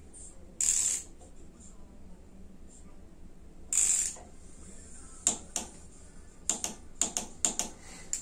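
Ratchet of a torque wrench set to 15 Nm clicking as the nut on a Vape ignition rotor is tightened, the engine held against a blocked piston. Two short hissing scrapes come first, then a run of about ten sharp clicks at uneven spacing in the second half.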